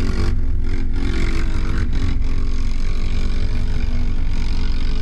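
An ATV's engine revving, its pitch rising and falling as it churns through a mud hole, over a steady low engine rumble from the idling side-by-side close to the microphone.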